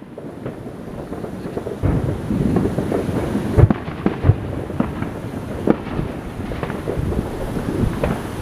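Neighbourhood fireworks going off all around at a distance: a continuous rolling rumble of booms, with sharper bangs breaking through every second or so, the loudest about three and a half seconds in.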